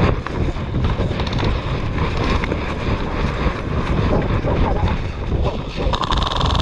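Wind buffeting a body-worn action-camera microphone as a low, uneven rumble, with scattered clicks and knocks of handling noise.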